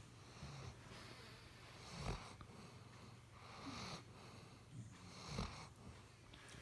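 A sleeping dog snoring faintly: slow, hissing breaths, with two louder snores about three seconds apart.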